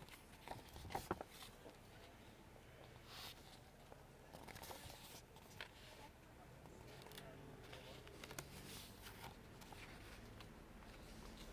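Faint rustling of paper: printed sheets in a file folder being handled and leafed through, a scattered handful of short rustles.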